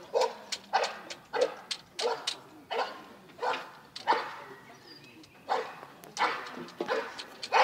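A dog barking repeatedly, about one bark every two-thirds of a second, with a short pause about halfway.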